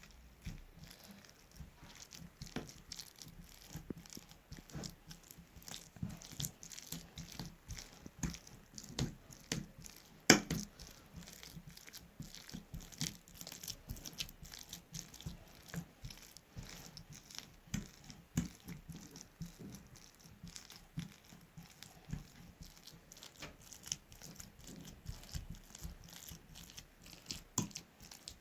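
Hands mashing and squashing steamed dried figs into a paste, making irregular soft squishes and light taps, with one sharper knock about ten seconds in.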